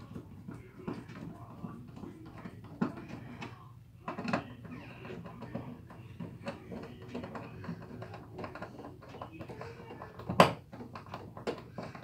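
Screwdriver driving the metal mounting screws of a duplex wall outlet into the electrical box: a run of small clicks and scrapes of steel on steel, with a few sharper clicks, the loudest near the end.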